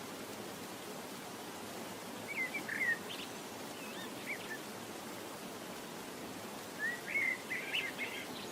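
Steady hiss with a bird chirping short calls in three brief clusters.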